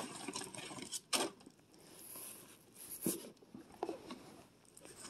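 Handling noises as a cardboard toy box and its packaging are moved about: a few soft knocks and rustles, the loudest about a second in.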